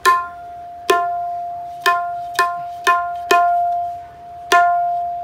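Right-hand tabla (dayan) tuned to F, struck seven times with open strokes. Each stroke rings on with one clear, sustained pitch.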